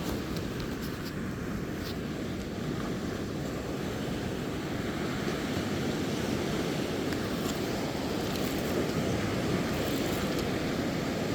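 Ocean surf breaking and washing on the shore: a steady low rumble with no let-up.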